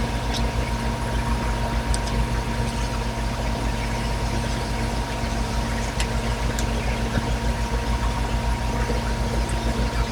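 A steady machine hum with a constant pitch, with a few faint short clicks from a pocketknife being unscrewed and taken apart.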